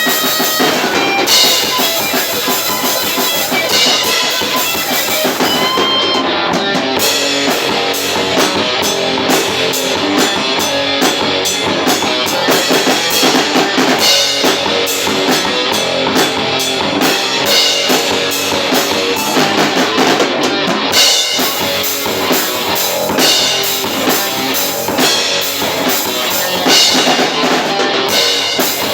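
Metal band playing live in rehearsal: a drum kit with kick drum and cymbals driving under electric guitar, a continuous loud wall of sound. The cymbals drop out briefly twice, about six seconds in and again near twenty seconds.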